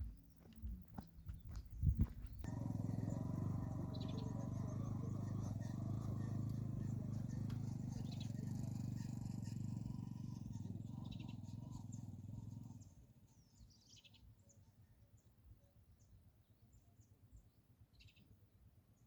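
A few knocks, then a steady low hum for about ten seconds that cuts off suddenly. After it, birds chirp in short, scattered calls over a quiet rural background.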